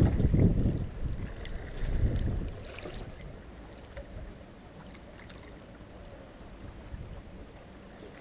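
Wind rumbling on the microphone in gusts, loudest in the first second and again about two seconds in, then settling to a faint steady outdoor hiss.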